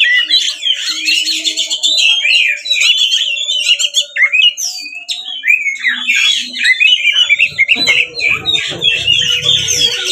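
Oriental magpie-robin (kacer) singing loudly and non-stop, a fast, varied stream of sweeping whistles and chirps, the full, aggressive song meant to provoke other magpie-robins. A low rumble joins near the end.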